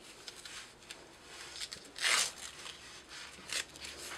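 A Velcro hook-and-loop strap being pulled open and handled: faint rustling with one short rasp about two seconds in.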